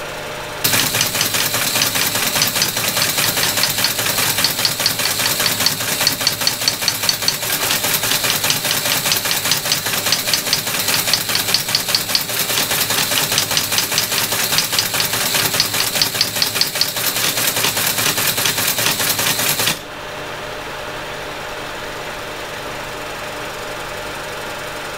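Teletype ASR33 teleprinter printing a received file: a fast, even mechanical clatter of the print mechanism typing character after character, with its motor running underneath. The clatter stops abruptly about 20 seconds in, leaving the motor humming steadily at idle.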